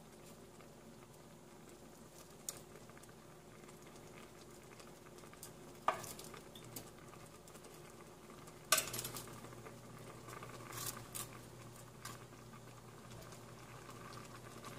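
Pieces of fried milkfish being laid into a metal wok of simmering vegetables and broth: a few short knocks and clinks against the pan, the loudest about six and nine seconds in, over a faint steady bubbling.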